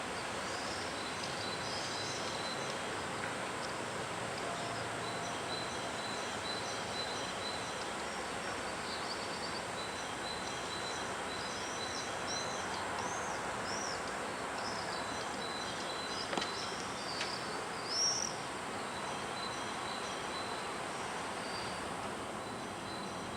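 Outdoor ambience: a steady hiss with small birds chirping high and on and off throughout, and one louder chirp about 18 seconds in.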